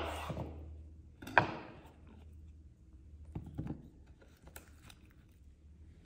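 Kitchen knife chopping fresh ginger root on a wooden cutting board: one sharp chop about a second and a half in, then a few lighter taps and clicks.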